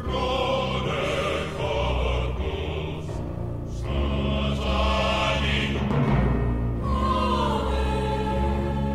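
Dramatic choral music: voices sing over deep, sustained bass notes and timpani, in the manner of an ominous film score.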